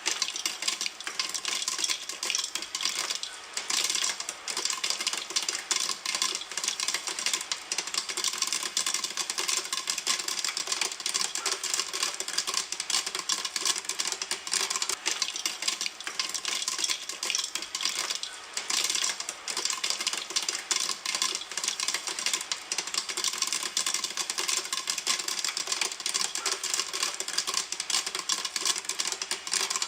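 Popcorn kernels popping in a pan: a dense, steady run of many sharp pops every second.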